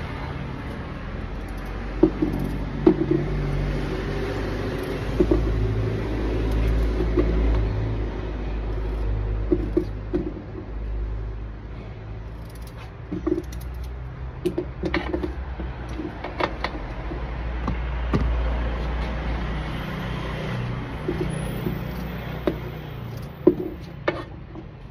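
Knife cutting raw potatoes by hand, with irregular short clicks and knocks as pieces are cut and set down, over a steady low rumble.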